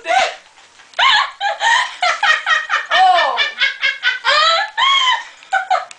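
Young women laughing hard, high-pitched with quick repeated pulses, pausing briefly between fits.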